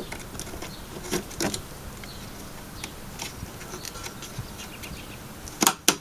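A DDR3 memory stick being pushed down into a motherboard DIMM slot, with light plastic taps and handling noise. Near the end come two sharp, loud clicks as the slot's retention latches snap shut and the module seats.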